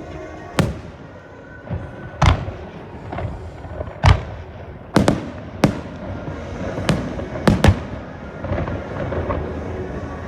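Fireworks shells bursting in a string of sharp bangs, roughly one a second, with a close pair near the middle and a double bang after about seven and a half seconds. Music plays underneath.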